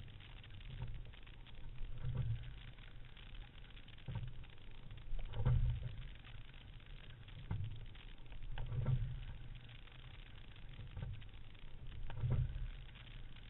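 Single racing scull being rowed at a slow drill rate: water hissing past the hull, with a low knock twice in each stroke from the oars and blades at the catch and the finish, the second knock the louder, about every three and a half seconds.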